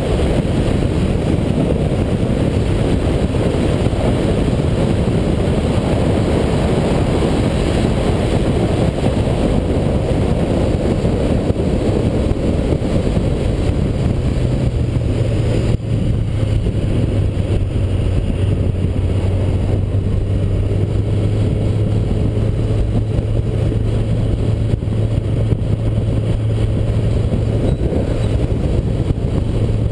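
Yamaha FZ1's inline-four engine running at road speed while riding, under a heavy rush of wind on the microphone. About halfway through, after a brief dip, a steady low engine hum comes through more strongly.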